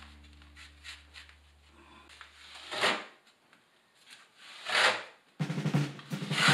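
A held background-music tone fades out, then short scraping strokes against the mortared cement-board shower wall, about two seconds apart. Background music with a drum beat comes in near the end.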